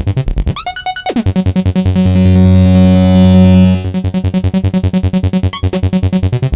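Novation MiniNova synthesizer playing a fast pulsing bass sequence, about ten notes a second. Near the start a pitch sweep drops sharply, and in the middle a low note is held for about two seconds before the pulsing returns.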